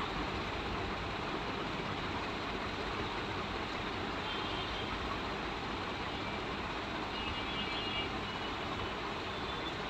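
Steady background noise with no breaks, with faint high tones about four seconds in and again near eight seconds.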